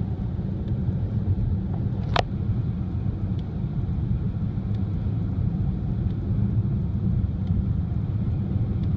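Steady low road and engine rumble heard inside a moving Hyundai Sonata's cabin, with one brief sharp click about two seconds in.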